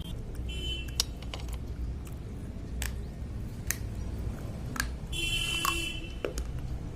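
Slate pencils being bitten and crunched: a handful of sharp, separate cracks over a steady low hum, with a brief high buzzing tone about five seconds in.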